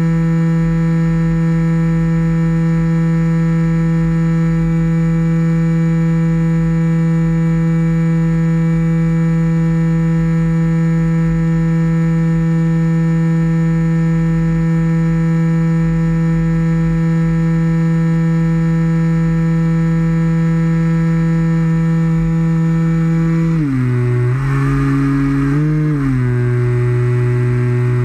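A radio-controlled model plane's motor and propeller run at a steady pitch, heard from a camera on the airframe. About three-quarters of the way through the pitch drops as the throttle is cut back, rises briefly, then drops again.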